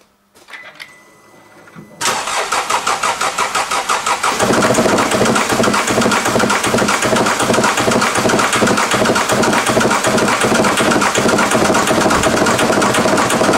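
Mercedes OM651 CDI four-cylinder diesel cranked by the starter for about two seconds, then catching and running at a steady idle with the usual diesel clatter. All four injectors are still connected, so this is the baseline sound of the engine running on all cylinders.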